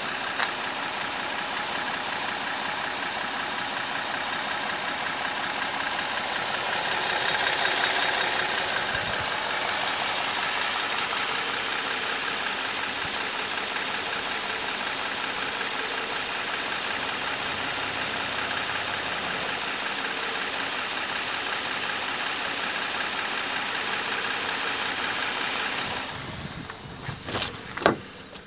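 2017 Kia Carnival's 3.3-litre petrol V6 running at idle, heard close at the open engine bay as a steady mechanical clatter. Near the end it drops away and a few sharp clicks and knocks follow as the front door is handled.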